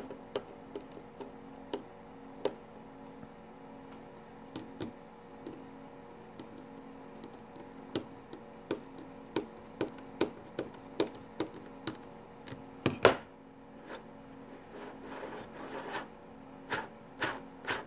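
Small hand screwdriver turning screws into a plastic tank turret race ring: light clicks and ticks, coming about one and a half times a second for a few seconds mid-way, with one louder clack about two-thirds through.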